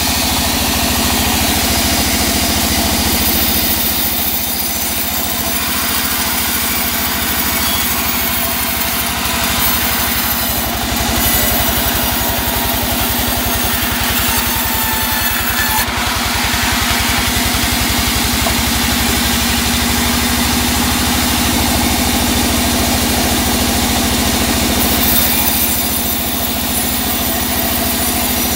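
Large sawmill band saw running with a steady engine drone.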